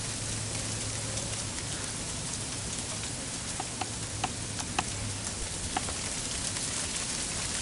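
Steady patter of freezing rain mixed with liquid rain coming down, with a handful of sharper ticks about halfway through.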